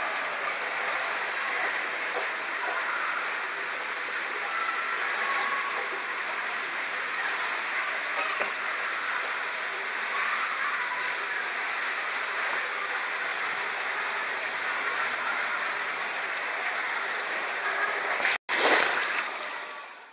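Water rushing through an enclosed waterslide tube as a rider slides down it, a steady, even rush. Near the end, after a brief break, there is a louder rush that then fades out.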